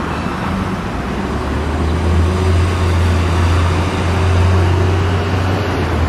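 City road traffic passing, with a heavy vehicle's engine giving a low, steady rumble that grows louder about two seconds in.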